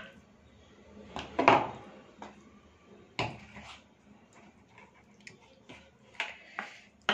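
Hands working chicken leg pieces through thick yogurt marinade in a plastic bowl, with scattered soft wet squelches and knocks as coated pieces are set down on a plastic plate. The loudest knock comes about a second and a half in.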